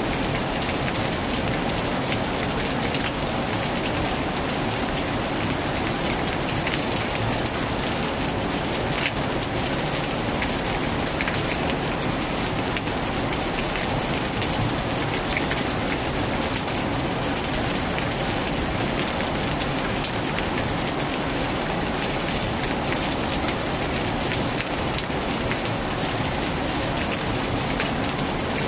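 Heavy rain falling steadily, an even hiss with scattered sharp drop ticks.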